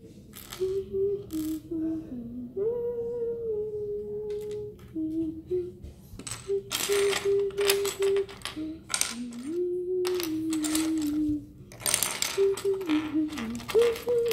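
Someone humming a wandering tune while small plastic LEGO pieces clatter and click as they are handled. The clattering is loudest in two spells, one in the middle and one near the end.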